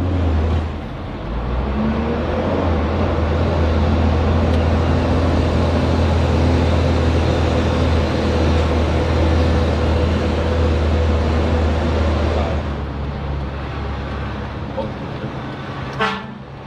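Isuzu Giga FVZ self-loader truck's diesel engine running under way, heard from inside the cab as a steady low drone that drops off about twelve seconds in. Near the end a vehicle horn gives one short toot.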